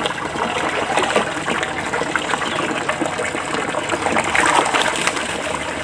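Shallow water gushing and running steadily over a concrete floor, with small splashes from hands groping in it.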